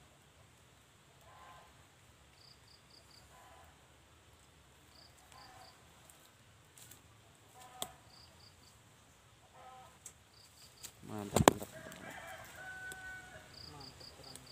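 A rooster crowing, the loudest call coming about three-quarters of the way in, just after a loud bump. Short groups of three or four high chirps repeat every couple of seconds throughout.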